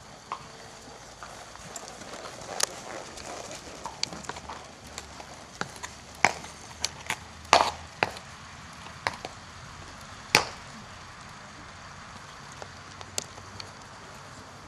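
Chestnut horse trotting and cantering under saddle on a sand arena: soft hoofbeats with scattered sharp clicks and knocks, the loudest few in the middle.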